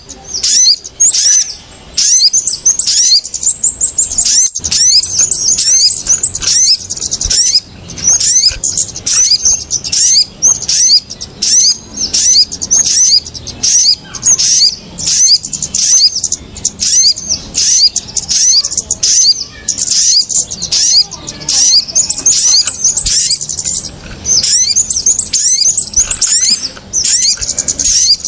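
Bird-lure recording of small birds, kemade and sogon, in an agitated chorus: dense, rapid high chirps one after another with only brief breaks. This noisy calling is used to draw small birds down to lime sticks.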